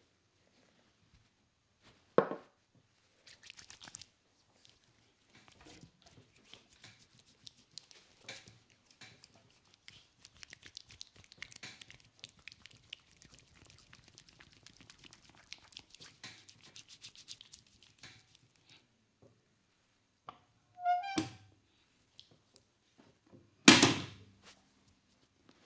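Hands rubbing cream into the skin of a leg during a massage, a soft wet rubbing and squishing. A sharp thud comes about two seconds in, another shortly after twenty seconds, and the loudest near the end.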